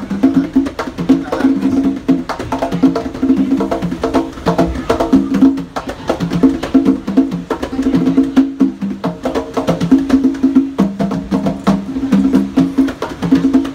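Hand drum played with bare hands in a fast, continuous rhythm: quick sharp slaps over ringing, pitched open tones.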